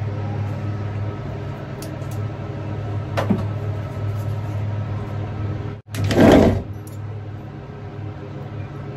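Steady low hum of a kitchen appliance, with a single click about three seconds in. After a short gap about six seconds in comes a brief, louder burst of handling noise.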